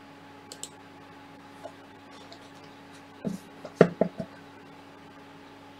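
A few small clicks, then a quick cluster of hard knocks about three to four seconds in, from hardware being handled on a workbench.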